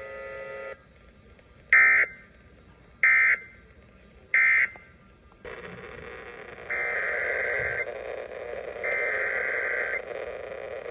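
Emergency Alert System (SAME) digital data tones, raspy two-tone squawks. Three short ones about a second apart mark the end of the previous message. After a pause, a steady low noise comes in underneath and two longer ones begin, the header of the next alert being relayed.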